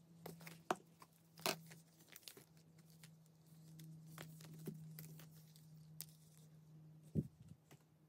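A leather crossbody strap being handled: light rubbing and rustling of the leather, with scattered sharp clicks from its metal buckle and snap-hook clips. The loudest clicks come about a second and a half in and near the end, when the strap is set down. A faint steady low hum runs underneath.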